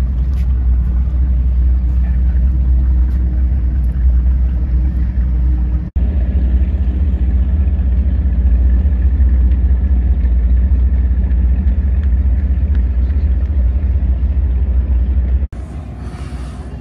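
Steady low rumble of wind buffeting the microphone, much weaker for the last second or so.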